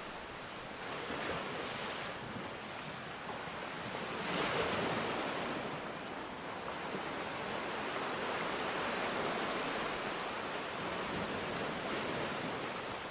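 Sea waves washing onto the shore, a steady rushing hiss that swells as each wave breaks, loudest about four and a half seconds in.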